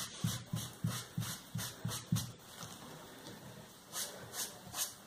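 Small foam sponge on a stick dabbing and rubbing paint through a plastic stencil onto EVA foam, about three quick strokes a second. The strokes pause briefly in the middle and then pick up again near the end.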